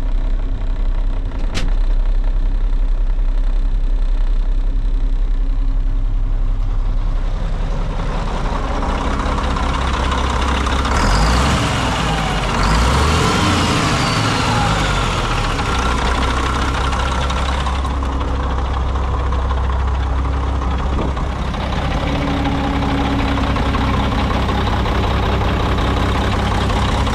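2005 Mack quad-axle dump truck's turbocharged diesel engine idling steadily, revved up and back down a couple of times around the middle. A single sharp click sounds about a second and a half in.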